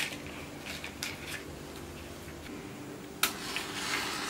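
Small objects handled in the fingers, with faint clicks and taps, then a sudden hiss about three seconds in that fades over about a second.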